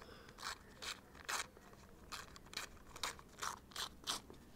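Newspaper being torn in short, quick rips along the edge of a ruler, about nine rips roughly two a second, as strips are cut off for a paper kite's tails.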